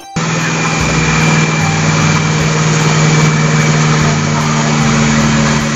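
Concrete mixer truck's diesel engine running steadily while its drum turns and discharges concrete down the chute. It starts abruptly just after the beginning and holds an even hum throughout.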